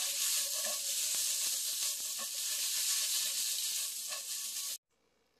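Diced potatoes and bacon sizzling in a frying pan as they are stirred and tossed, a steady hiss that cuts off suddenly near the end.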